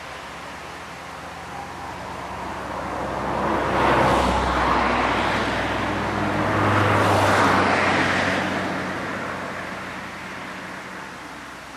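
A road vehicle passing: engine and tyre noise swell over a few seconds, peak twice about three seconds apart, then fade away.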